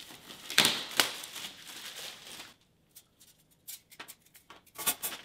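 Clear plastic packaging bag crinkling and tearing as a wire organizer part is unwrapped, with two sharp crackles in the first second. After that come quieter light clicks and rattles of thin wire rack pieces being handled, and a louder rustle near the end.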